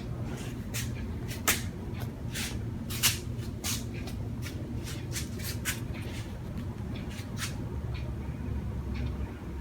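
Handling noise: a string of light clicks and taps, a few a second at times, over a steady low hum.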